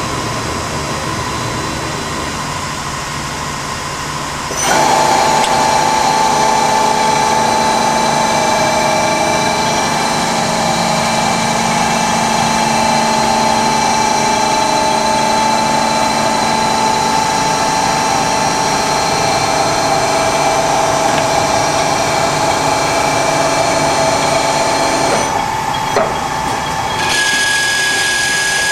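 Tsugami SX20-C CNC Swiss-turn lathe running, a steady mechanical whine made of several held tones. About five seconds in it steps up louder with new, stronger tones, and it changes again near the end with a higher tone coming in.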